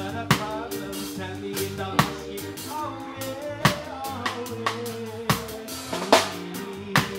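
Live band music: a drum kit keeps a slow steady beat with a sharp accented hit about every second and a half, over ukulele and keyboard.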